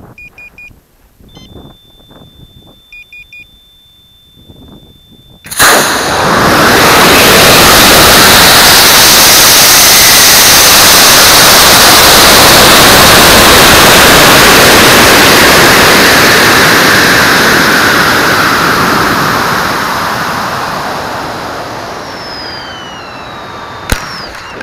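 Onboard sound of a high-power model rocket launch. A few short electronic beeps and a steady high tone come first. About five and a half seconds in, the CTI J210 Classic motor ignites with a sudden loud rushing noise that holds for about ten seconds and then slowly fades as the rocket climbs. Near the end there is a sharp pop as the ejection charge fires and separates the nose cone to deploy the recovery system.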